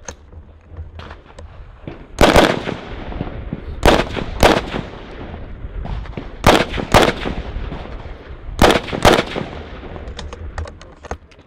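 AR-15 semi-automatic rifle firing close up: about eight loud shots in four quick pairs spread over some seven seconds, two shots at each target.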